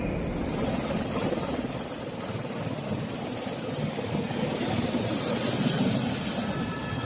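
Helicopter running: a steady noise with a faint high-pitched whine over it.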